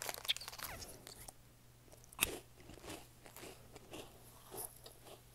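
A person crunching and chewing a crunchy snack, with a sharp bite about two seconds in and softer crunches after it.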